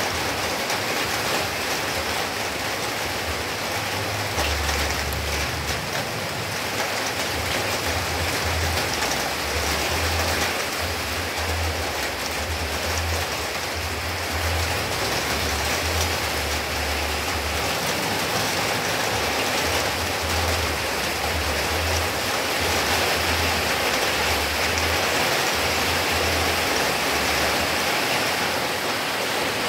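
Heavy rain falling steadily, a continuous even hiss of drops. A low rumble comes and goes underneath.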